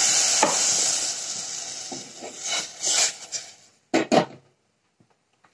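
Water poured onto jaggery in a hot pan, sizzling and hissing and dying away over a few seconds, while a spoon stirs and clinks against the pan. Two sharp knocks come about four seconds in.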